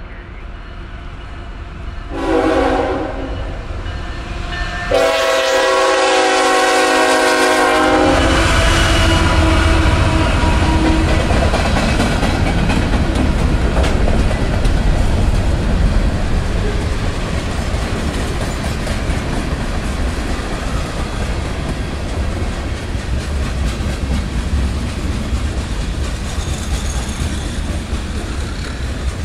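Freight train locomotive horn sounds twice, a short blast about two seconds in and a longer one from about five to eight seconds. The train then rumbles past with the steady clickety-clack of freight car wheels over the rail joints.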